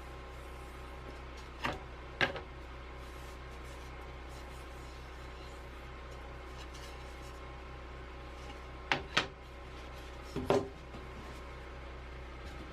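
A few light knocks and clatters, in pairs about two seconds in, around nine seconds and around ten and a half seconds, over a steady low hum.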